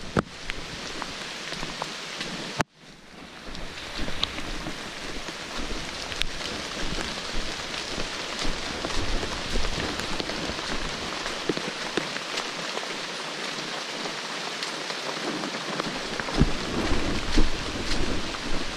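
Steady rain pattering on dense wet foliage, with many scattered sharp drop taps. The sound cuts out briefly about three seconds in, and there are low rumbles near the end.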